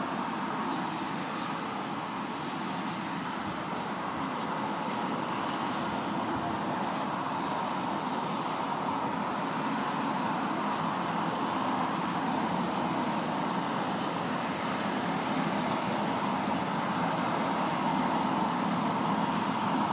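Steady, distant engine noise, slowly growing louder.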